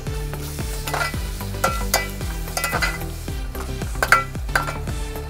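Chicken pieces being stirred in sizzling, oily masala in a pot, with the ladle scraping and clinking against the pot about six times.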